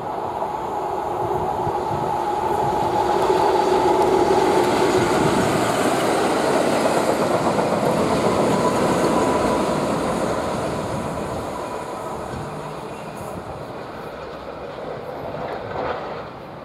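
A pair of British Rail Class 20 diesel locomotives, English Electric 8SVT engines, passing with a nuclear flask train. Their engine note builds as they approach and is loudest about four seconds in, then the wagons roll by on the track and the sound fades away as the train recedes.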